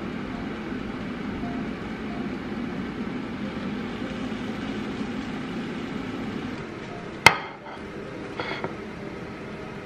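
Countertop air fryer's fan running with a steady low whir, which drops away about six and a half seconds in. A single sharp clack follows soon after, then a couple of light knocks.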